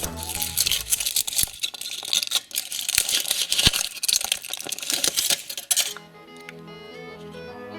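Background music under dense rustling and clicking as a surprise egg's wrapper and plastic toy capsule are handled and opened, lasting about six seconds. After that only the music continues.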